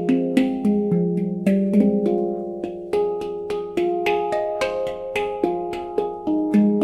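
Nitrided steel handpan tuned to an F Pygmy scale, its notes struck by hand in a flowing melody, about two to three strikes a second, each note ringing on with bright overtones.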